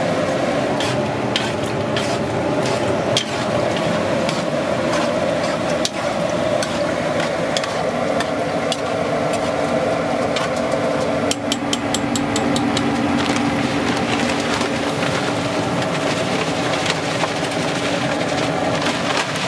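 A metal spoon stirring and knocking against a large metal cooking pot, with scattered clinks and a quick run of clinks a little past halfway, over a steady kitchen hum.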